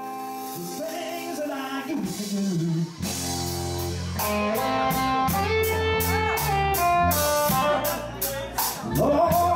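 Live blues band: electric guitar plays the intro alone, then electric bass and drum kit come in about three seconds in, with a steady beat of cymbal strikes.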